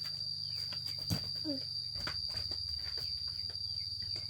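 Steady high-pitched drone of insects, crickets or cicadas, with scattered sharp clicks and snaps, a loud one about a second in.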